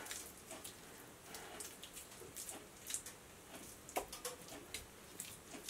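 Faint, irregular wet squishes and clicks of a ground elk meatloaf mixture being squeezed and shaped by hand in a stainless steel bowl.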